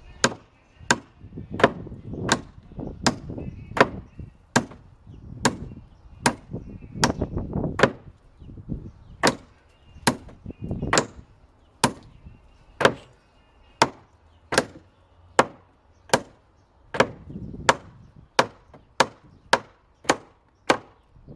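Hammer striking wood in a steady rhythm, about one sharp blow every three-quarters of a second, with duller thuds between the blows.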